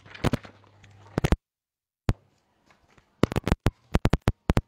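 Sharp taps and clicks of a pen or chalk writing on a board, coming in quick irregular strokes with a short pause about a second and a half in.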